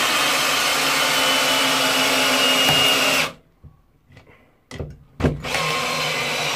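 Ryobi R18PD3 cordless drill-driver running under heavy load on first gear, driving a 6×100 mm lag screw into a timber block through a socket. It runs steadily for about three seconds and stops, two sharp knocks follow, and then it runs again for about a second.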